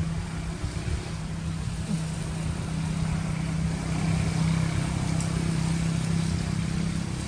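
Steady low hum of an engine running, a little louder around the middle.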